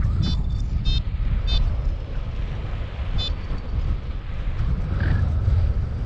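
Wind buffeting the microphone in a steady low rumble, with a few short high-pitched beeps in the first couple of seconds and once more about three seconds in.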